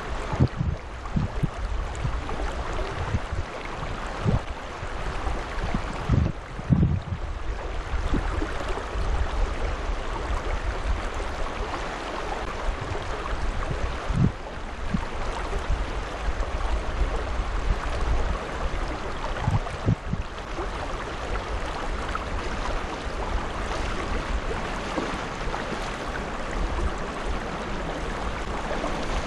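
Steady rush of river water, with low wind buffets on the microphone now and then, most often in the first several seconds.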